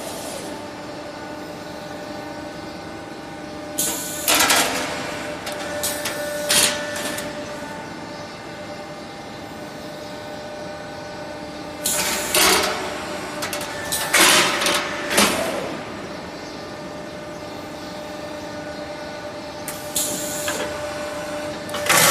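Hydraulic CNC press brake running an automatic bending cycle: a steady hum of the hydraulic pump with several tones, broken every few seconds by loud noisy surges with sharp knocks as the machine works the sheet.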